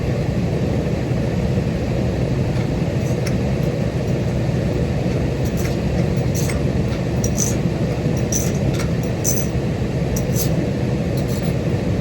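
A vehicle running steadily, with a dense low rumble of engine and road noise. Short high clicks and rattles come and go from about three seconds in.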